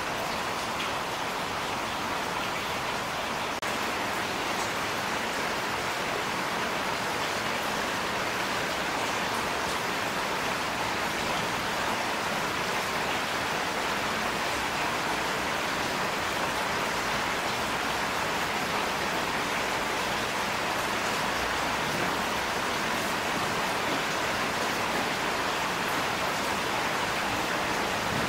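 Steady rain: an even hiss with fine scattered patter of drops.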